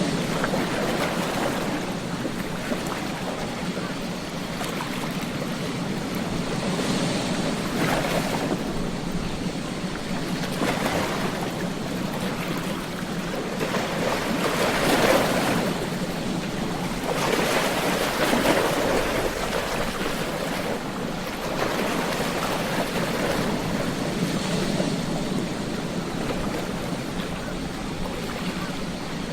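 Ocean waves breaking and washing onto a beach, one surge after another every few seconds, with the loudest wave about halfway through.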